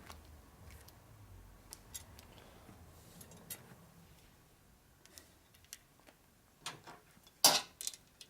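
Scattered light clicks and taps of a metal brake line being handled and bent by hand, with a louder sharp clack about seven and a half seconds in.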